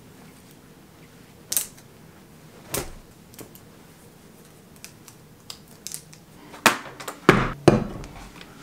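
Plastic clothes hangers clicking and clothes rustling as garments are hung up, with a few separate sharp clicks. Near the end, a quicker run of louder knocks and taps.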